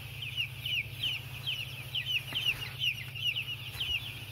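A flock of seven-day-old broiler chicks peeping without a break, many short falling chirps overlapping, over a steady low hum.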